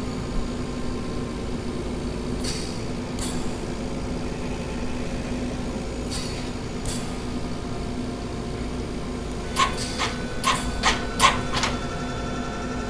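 Hospital machine ambience: a steady mechanical hum with a low drone and a few faint clicks, then a quick run of about six sharp clicks near the end.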